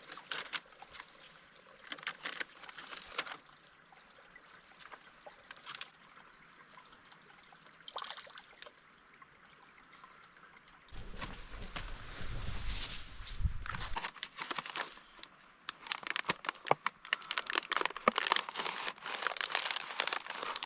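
Plastic MRE pouches crinkling and rustling as they are handled while the flameless ration heater is set up. Scattered light rustles come first, then dense crinkling through the last five seconds. A low rumble sounds about eleven to fourteen seconds in.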